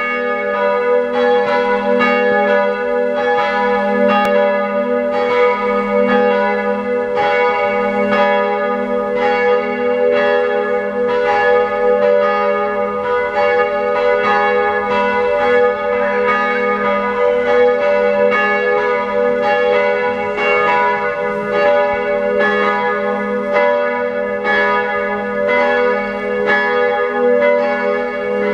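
Several church tower bells ringing together in a full peal, ringing in the New Year. Their strikes overlap densely and keep an even loudness throughout.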